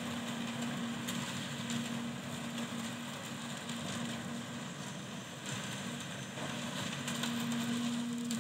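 Hyundai excavator's diesel engine running steadily at idle, a constant hum with the general machine noise of the site under it.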